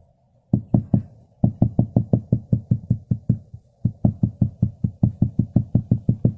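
Rapid knocking on a car's windshield glass, about six or seven knocks a second in several runs with short breaks, done to work remaining air bubbles out from under the resin of a windshield chip repair.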